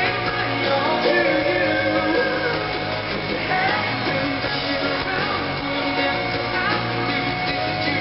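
Live pop-rock song recorded from the arena audience: a male voice singing over strummed acoustic guitar and band.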